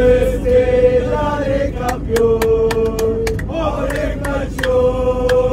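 A group of football supporters chanting in unison, holding long notes, with sharp hand claps in time in the middle and again near the end. A steady low drone of the airliner cabin runs underneath.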